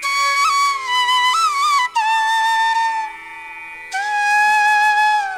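Background music: a solo flute melody over a faint steady drone, playing long held notes decorated with quick bends and grace notes. There is a brief softer pause about three seconds in.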